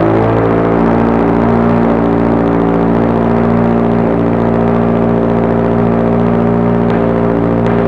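2022 Subaru BRZ's 2.4-litre flat-four running at a steady, even pitch through a Tomei Expreme Ti titanium single-exit catback exhaust with a large rear canister.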